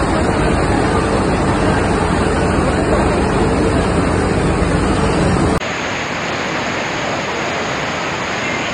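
Loud, steady rush of muddy floodwater pouring and cascading. About two-thirds of the way through it cuts abruptly to a slightly quieter, thinner rush of a flooded waterfall tumbling down a rocky gorge.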